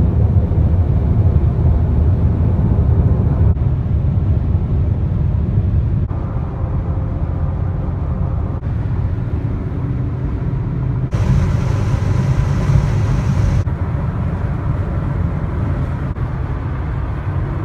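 Steady low rumble of a moving vehicle, heard in several short clips joined with abrupt cuts, one with added hiss a little past the middle.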